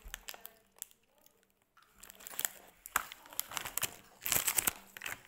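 Plastic snack wrapper crinkling as it is handled: scattered crackles, with the loudest burst of rustling a little after four seconds in.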